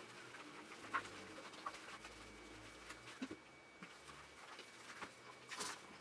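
Faint handling sounds of a wet cocker spaniel being washed in a small shower stall: scattered light taps and clicks, a sharper tick about a second in, and a short hiss about five and a half seconds in.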